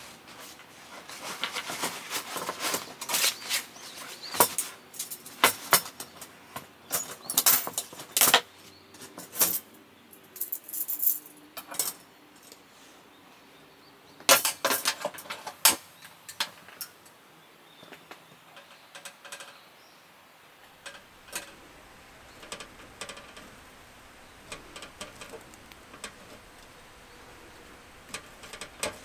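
Metal wire grill rack and toaster plate clinking and rattling as they are handled and set onto a portable gas stove, along with a fabric pouch rustling. The sharp clinks come thick over the first half, then thin out to scattered soft clicks.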